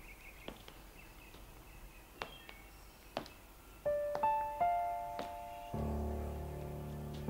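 Faint bird chirps over quiet room tone, then a slow piano melody enters about four seconds in, single notes ringing out one after another, joined by a low sustained chord near six seconds.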